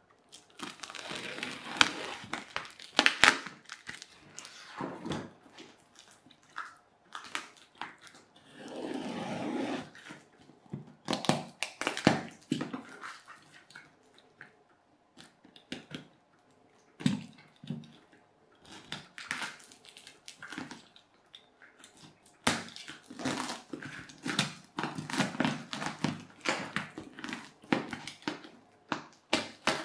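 Clear plastic wrapping and tape being pulled and peeled off a cardboard parcel by hand: irregular crinkling and crackling, with several longer tearing rasps, the longest about nine seconds in.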